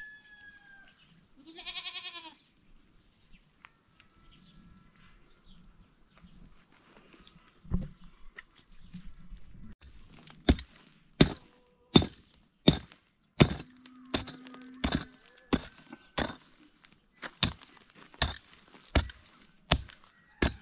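A single bleat from livestock about two seconds in, then a steady series of sharp tool blows, roughly one every three-quarters of a second, starting about ten seconds in and getting loud.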